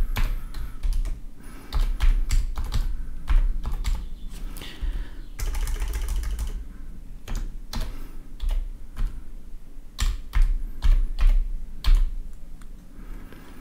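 Typing on a computer keyboard: a run of irregular key clicks with short pauses.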